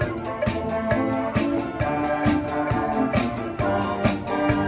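Live brass band playing: sousaphones, trombones and trumpets holding chords over a drum kit that keeps a steady beat.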